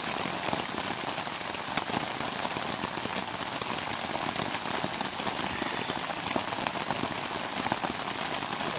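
Steady rain falling, a dense patter of individual drops ticking over a constant hiss.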